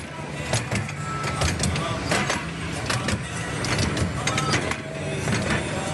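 Plantation tour train running along its track: a steady low rumble with frequent irregular clicks and rattles from the moving cars.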